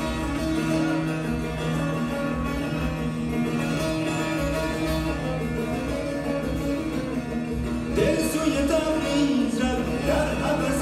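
Persian classical music on plucked string instruments over steady held notes. A singing voice comes in about eight seconds in and the music grows a little louder.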